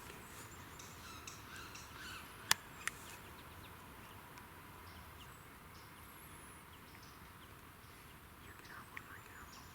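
Quiet woodland ambience with scattered bird calls, and two sharp clicks close together about two and a half seconds in.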